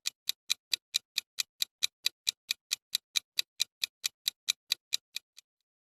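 Countdown timer ticking sound effect: a steady run of short clock ticks, about four to five a second, that stops shortly before the end.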